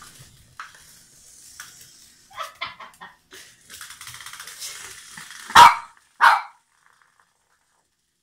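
Small white dog barking while hunting a mouse: two loud, sharp barks in quick succession about five and a half seconds in, after a few softer yips.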